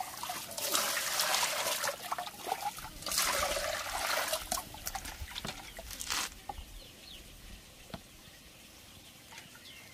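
Water poured from a plastic dipper into an aluminium basin of fish, splashing in two long pours in the first six seconds. After that, quieter trickles and small splashes as the fish are rinsed by hand.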